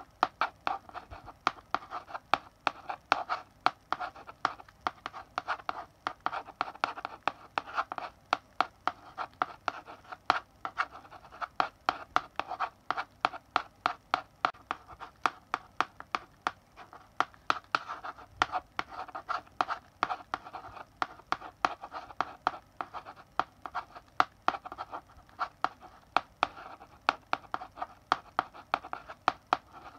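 Chalk writing on a blackboard: a steady run of sharp taps, several a second, as the chalk strikes the board, with scratchy strokes between them.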